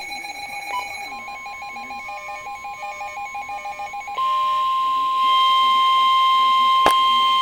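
Rapid electronic beeping that pulses several times a second for about four seconds. It gives way to the loud, steady 1050 Hz NOAA Weather Radio warning alarm tone, which signals that a warning message follows. A second, higher tone joins it about a second later, and there is a sharp click near the end.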